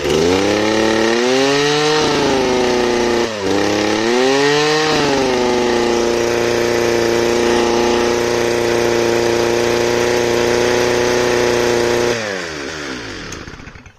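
Two-stroke engine of a Stihl FS 260 brush cutter revved up and down twice, then held at a steady high speed for about seven seconds before it winds down and stops near the end. The machine is said to lack power, and at full throttle the mechanic feels it bogging down, unsure why.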